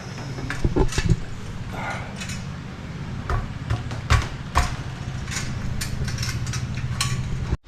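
Metal parts of a weight bench clinking and knocking now and then during assembly, over a steady low hum.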